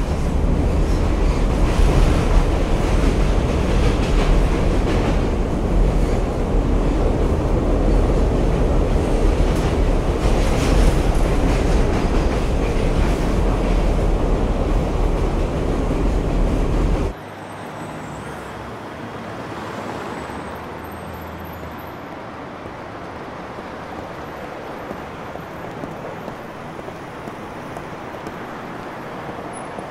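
Steady deep rumble of a train carriage running on its rails, heard from inside. About seventeen seconds in it cuts off suddenly to a much quieter steady street ambience with distant traffic.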